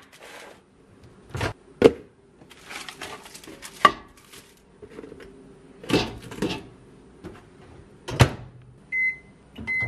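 Knocks and clatter of a microwave oven being loaded: a frozen dinner tray set onto the glass turntable, a plastic cover placed over it and the door shut with a thud. Near the end come two short keypad beeps as the microwave is set going.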